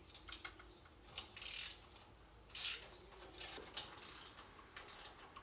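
Faint socket ratchet clicking in short, irregular bouts while loosening exhaust manifold bolts.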